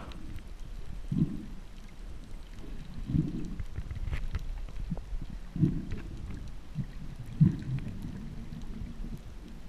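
Underwater recording: muffled low surges of water moving against the camera housing, about every two seconds, over a steady low rumble, with a few faint clicks.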